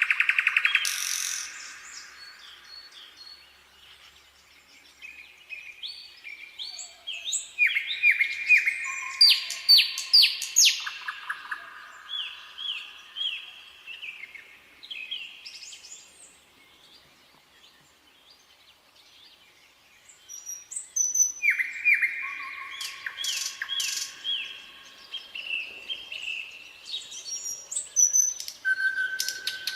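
Nightingale singing in phrases of rapid repeated notes and trills, with a pause of a few seconds around the middle before the song resumes.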